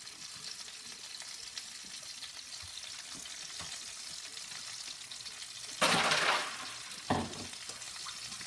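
Chicken cutlets frying in a pan of hot oil, a steady sizzle. About six seconds in there is a much louder burst of noise lasting under a second, then a short knock about a second later.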